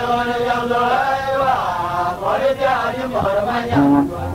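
A voice singing a chant-like song, holding long notes that bend and glide between phrases.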